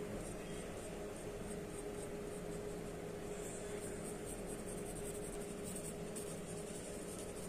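Faint scratching of a black pen on drawing paper in short strokes, coming more often in the second half, over a steady low hum.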